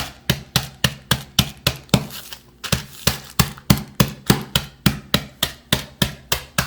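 Cashews being pounded to break them up for a crumble topping: steady, repeated knocks about three times a second, with a brief pause a little after two seconds in.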